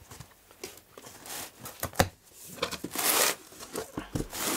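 A cardboard shipping carton being opened and handled by hand: a sharp knock about two seconds in, then a rough tearing sound lasting about a second, and a few small knocks near the end.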